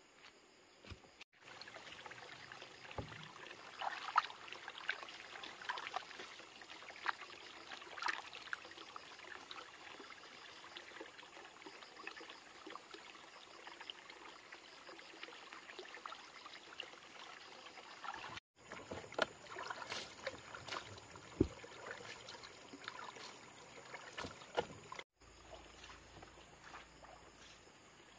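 Water running from a pipe into a plastic basin, with hands splashing and sloshing in the water in irregular splashes.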